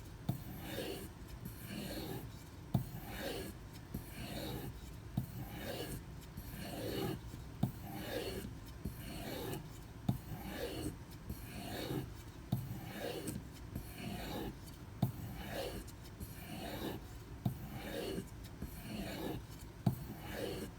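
Knife blade drawn in repeated strokes along a leather strop loaded with white compound, a steady back-and-forth rubbing at about one and a half strokes a second. A light click sounds every couple of seconds between strokes.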